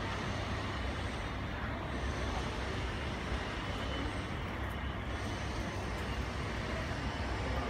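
Steady low rumble of airport apron noise, even and unbroken with no distinct events.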